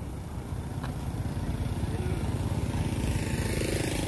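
A motorbike engine running close by, louder and hissier near the end as it passes.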